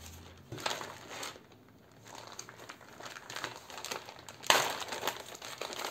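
Clear plastic packet crinkling and rustling as hands handle and open it, with a louder rustle about four and a half seconds in.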